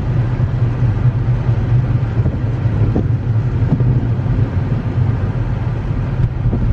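Car cabin noise while driving: the engine and tyres make a steady low drone.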